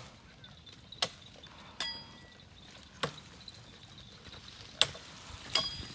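About six sharp clicks and knocks at irregular intervals over quiet outdoor background; two of them, about two seconds in and near the end, ring briefly like a metallic chink.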